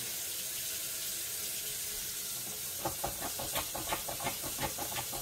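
Kitchen faucet running in a steady stream into a stainless sink. From about three seconds in, quick irregular splashing and spatter break into the stream, as when hands are worked under the running water.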